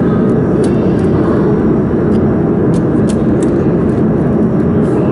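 Steady, loud low rumble of workshop machinery noise, with a few faint clicks scattered through it.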